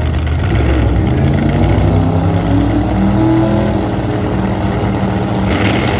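Drag racing car engine revving, its pitch rising over a few seconds and then holding steadier, with a burst of noise near the end.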